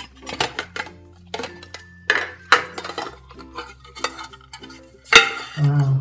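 Metal cake tin and glass plate clinking and knocking as a cake is turned out of the tin onto the plate, with a sharp loud knock about five seconds in. Background music plays throughout.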